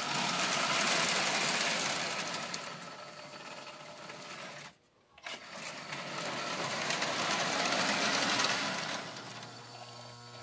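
Vintage O-gauge toy electric train running on tubular track, its motor and wheels making a steady mechanical whirr. The sound swells about a second in and fades by four seconds, cuts out for a moment about five seconds in, then swells again around eight seconds and fades near the end.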